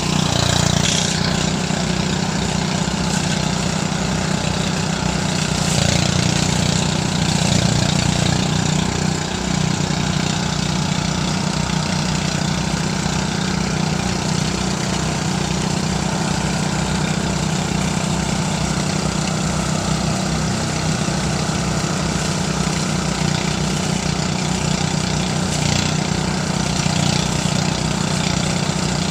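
Engine-driven rice threshing machine running steadily, a continuous drone with a fast low pulse.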